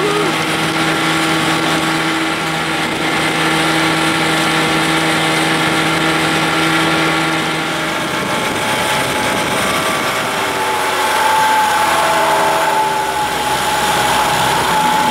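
1975 Evinrude 40 hp two-stroke outboard running steadily, driving the boat under way, with its stripped spark-plug thread freshly repaired. About eight seconds in, the engine note changes and dips as the boat slows, then settles into a new steady tone.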